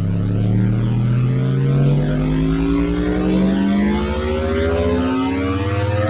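An engine running steadily, its pitch climbing slowly and evenly throughout, like a motor gradually gaining speed.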